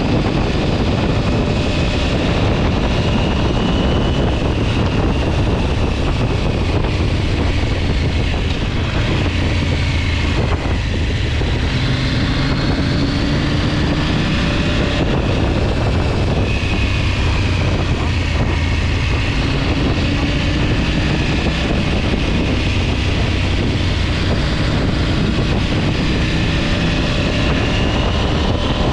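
An engine running steadily, its pitch slowly rising and falling several times, under heavy wind rush.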